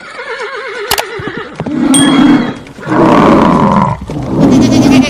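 A horse whinnies with a wavering, falling pitch. From about two seconds in, a series of loud, rough animal roars and growls follows.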